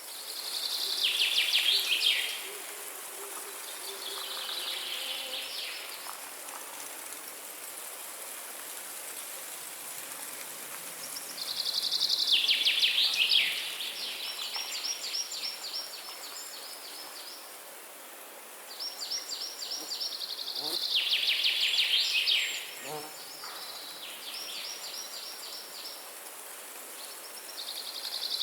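Songbird singing in a forest: a loud phrase of rapid trilled notes that drop in pitch, repeated several times with pauses of a few seconds between, over a steady high hiss of forest background.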